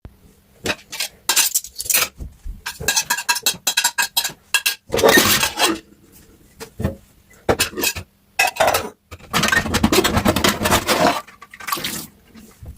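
Dishes and cutlery clattering and clinking against each other as they are handled in a kitchen sink, with two longer stretches of rushing noise from the tap's running water, one about halfway through and one near the end.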